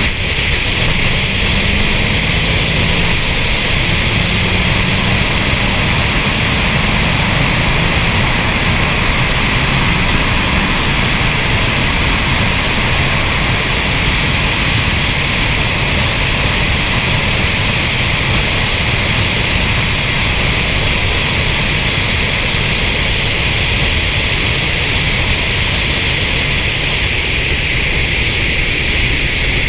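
Steady rush of wind over a hood-mounted camera's microphone, with a low road and tyre rumble, as the car cruises at constant speed. It stays even throughout, with no rise or fall in pitch.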